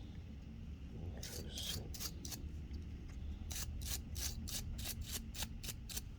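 Scrubbing a dusty DVR cooling-fan part with alcohol: short, quick rubbing strokes. There are a few at first, then a steady run of about four a second from halfway in.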